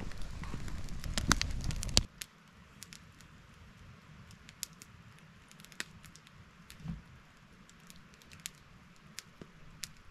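Wood campfire crackling, with sharp pops and snaps scattered through. For about the first two seconds a louder low rumble lies under the crackling, then cuts off suddenly, leaving sparse pops over a quiet background.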